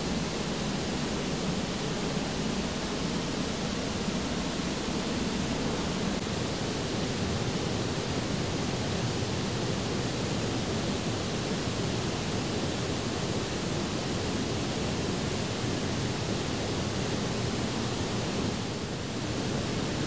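Steady, unbroken rush of water from a waterfall and its stream.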